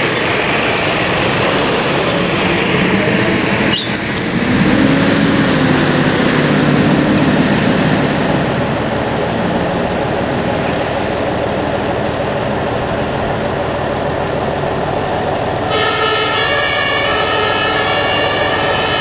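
A Mercedes-Benz HLF 20 fire engine's diesel engine runs as the truck pulls away, and its pitch rises for a few seconds after it passes. About three seconds before the end, the fire engine's two-tone siren comes on and alternates between its two notes.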